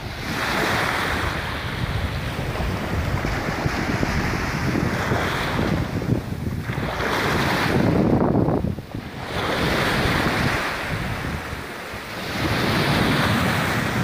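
Atlantic surf washing onto the beach, the rush of water swelling and easing every few seconds, with wind rumbling on the microphone.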